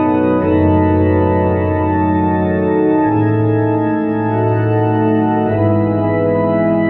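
Tokai YX 400 electronic organ on pipe-organ stops playing a slow hymn in held chords over a sustained bass. The chord and bass change about half a second in, again about three seconds in, and near the end.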